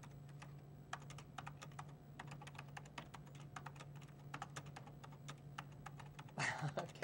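Amiga 1000 keyboard being typed on at an unhurried, uneven pace: a run of separate key clicks over a low steady hum, followed near the end by a short, louder rush of noise.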